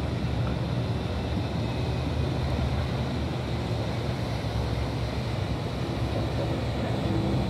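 Marine diesel engines of a 41.5 m catamaran ferry running steadily as it manoeuvres at low speed: a constant low drone with water churning in its wake, and some wind on the microphone.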